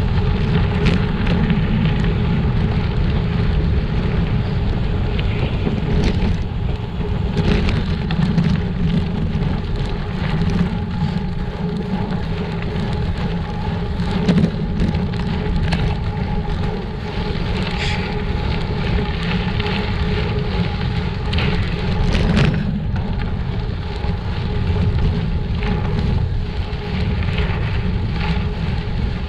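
Gravel bike rolling over a rough, rocky two-track: tyres crunching on gravel and stones, the bike rattling and knocking over bumps, with a steady hum and wind rumbling on the microphone.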